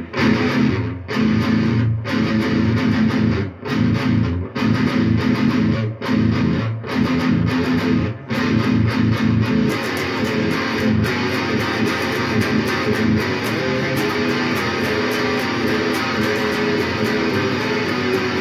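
Guitar music: chords played in short phrases broken by brief stops about once a second for the first eight seconds or so, then playing on without a break.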